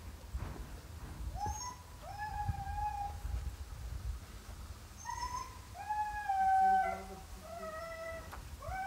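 Huskies whining: about six high, drawn-out calls, some held for about a second, the loudest about two-thirds of the way through.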